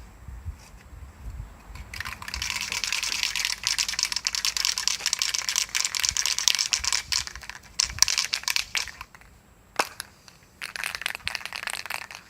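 Sanded bare-steel bumper being wiped down before priming, a dense crinkling scrub that starts about two seconds in and lasts some seven seconds. A single sharp knock follows, then a shorter spell of wiping.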